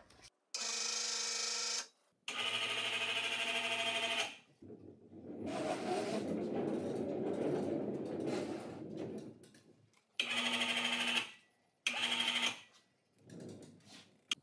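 An electric motor whining at a steady pitch in short on-off runs, two near the start and two near the end, each one to two seconds long and stopping abruptly. A rough rumbling, rustling noise fills the middle few seconds.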